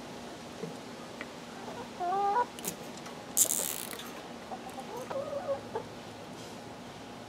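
Chickens clucking: a rising call about two seconds in and a warbling run of clucks near the end. About three and a half seconds in comes a short, loud rasp of a plastic zip tie being pulled tight around the fence.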